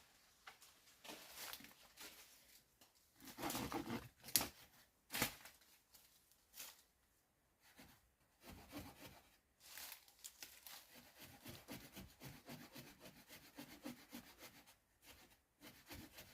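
Wood being worked by hand: scattered scraping and tearing sounds, then a run of quick, repeated rasping strokes like cutting or sawing wood from about ten seconds in.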